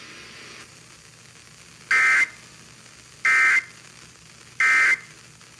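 Emergency Alert System SAME data tones sounding the end-of-message (EOM) code: three short bursts, each about a third of a second, with about a second's gap between them, signalling that the alert is over. Faint radio hiss lies under and between the bursts.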